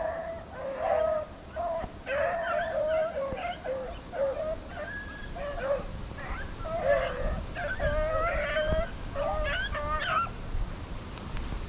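Pack of rabbit-hunting dogs baying and yipping, several voices overlapping in a running chorus, as the dogs hunt on after another rabbit.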